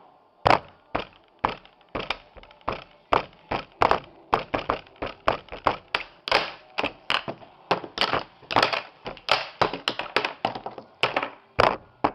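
A rapid, uneven series of sharp hard knocks and taps, about three or four a second.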